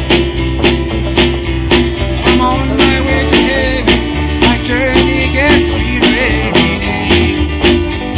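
A live band plays a country-gospel song: strummed acoustic guitar, electric bass and a drum kit keeping a steady beat, with a wavering melody line over the top.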